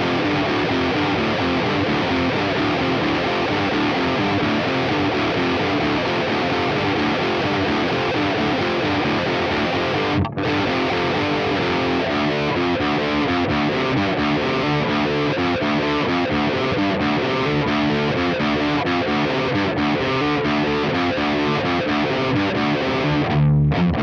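Parker Fly Deluxe electric guitar with DiMarzio pickups, played through a Diezel VH4 amp and a Mesa Boogie 4x12 cabinet with Celestion Vintage 30 speakers, riffing continuously with heavy distortion. The playing breaks off very briefly about ten seconds in.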